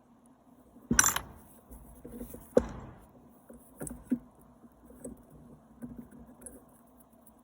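Small metal parts clinking and knocking as they are handled and set down on a hard surface. Two sharp clatters come about one and two and a half seconds in, followed by lighter, scattered taps.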